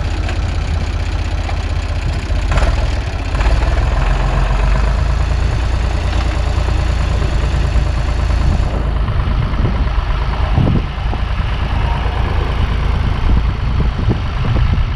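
A farm vehicle's engine running steadily at idle, loud and close.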